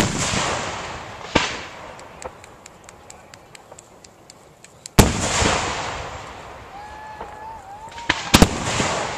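Aerial firework shells bursting: a bang right at the start, another about a second and a half in, a run of small crackling pops, a big bang about five seconds in and a quick double bang near the end, each bang dying away over a second or so.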